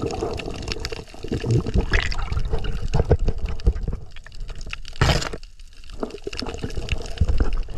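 Underwater water noise picked up by a GoPro: sloshing and rushing water with scattered crackling clicks, and a louder whoosh about five seconds in.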